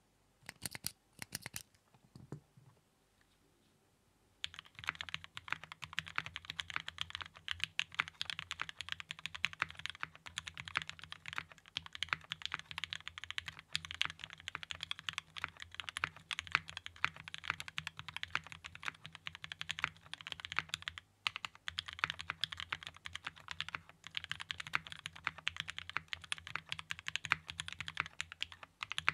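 Typing on a Geonworks F1-8X mechanical keyboard with lubed and filmed Gateron Ink Black v2 linear switches on an aluminum plate and GMK keycaps. A few single keystrokes come first, then after a pause of about two seconds the typing turns fast and continuous, broken by two brief stops.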